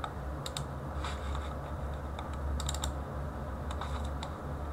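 A handful of sharp computer clicks from mouse and keys, with a quick cluster of clicks about two and a half seconds in, over a steady low hum.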